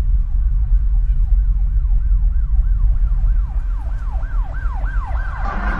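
An emergency-vehicle siren wailing in quick rising-and-falling sweeps, about three a second, growing louder toward the end, over a loud deep rumble.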